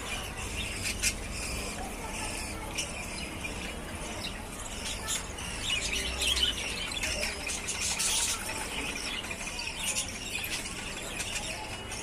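Show budgerigars chattering and warbling: a busy run of short, high chirps and squeaky notes that grows denser around the middle.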